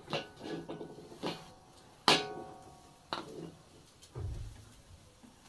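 Metal cookware knocked and clinked several times, with one ringing clang about two seconds in, then a dull thump near four seconds.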